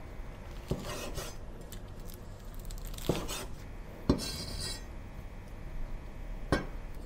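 Chinese cleaver cutting a crispy deep-fried beancurd-skin pork roll (lor bak) on a bamboo cutting board: several separate cuts, each crunching through the crisp, dry skin and ending in a knock of the blade on the board, the sharpest about four seconds in.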